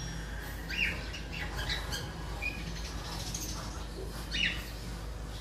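Birds chirping: a handful of short rising chirps and one brief whistled note, scattered over a steady low hum, with a faint click about two seconds in.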